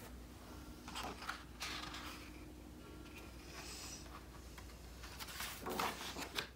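Paper pages of a picture book being turned and handled, rustling in a few short bursts, the loudest near the end.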